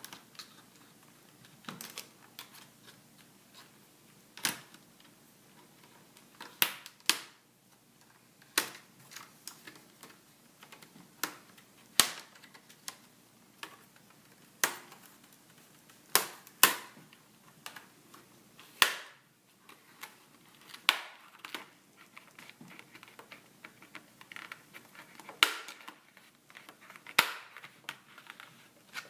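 Plastic screen bezel of a Sony Vaio laptop being pried loose with a spudger: a series of sharp plastic clicks and snaps, irregularly spaced a second or two apart, as the bezel's clips let go around the panel.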